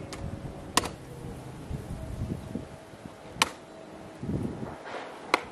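A cleaver chopping through raw pork trotters on a round wooden chopping block: three sharp chops, one about a second in, one past the middle and one near the end.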